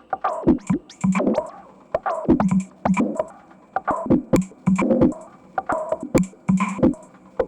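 RYK Modular Night Rider synth module played as percussion: a repeating electronic rhythm of short, sharp hits with quick falling, vocal-like sweeps, the pattern coming round about once a second.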